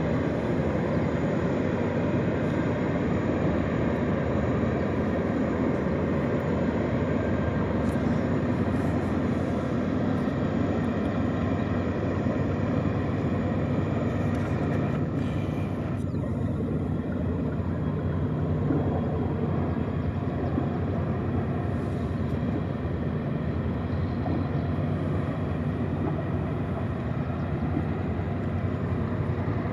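Tugboat's diesel engines droning steadily as it pushes a pair of loaded barges.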